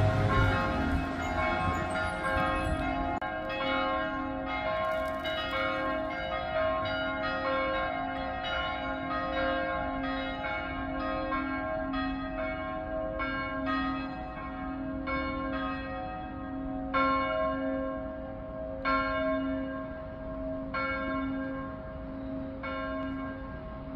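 Cathedral church bells ringing: several bells of different pitch struck over and over, about once a second, each tone ringing on under the next strike. A low rumble sits under the first three seconds.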